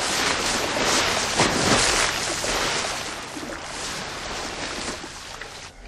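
A minivan crashing into a pond: a big splash with water and spray rushing and falling back, loudest at first and dying away over a few seconds.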